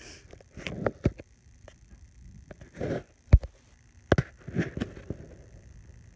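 Quorum Classic ceiling fan running on medium speed with a slight hum, overlaid by several short rustling bursts and sharp knocks. The loudest knock comes about a third of the way through.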